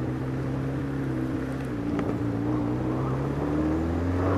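Yamaha XJ600's air-cooled inline-four engine running at low speed through its new exhaust, its note rising a little near the end.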